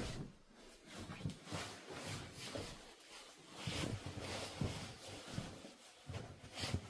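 Faint irregular rustling and soft knocks, as of someone moving about.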